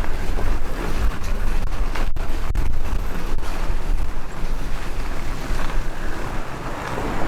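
Wind buffeting the microphone: a loud, steady rushing noise that cuts out for an instant a few times between about two and three and a half seconds in.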